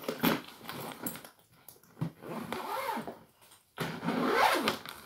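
A black hard-shell wheeled suitcase: its lid knocks shut at the start, then its zipper is drawn around the case in two long pulls, the pitch rising and falling with each pull.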